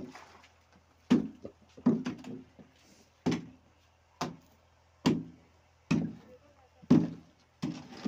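A run of eight dull knocks, spaced a little under a second apart, each a short thud with little ringing.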